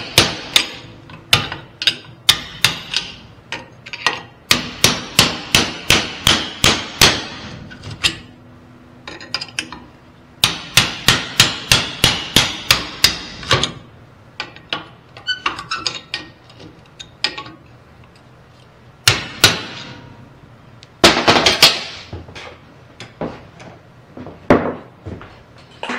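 Hand hammer striking a steel punch to drive a seized bushing and shaft out of a 1962 Corvair front control arm clamped in a vise. It comes as runs of sharp metal-on-metal blows, about two to three a second, separated by short pauses and a few lighter taps.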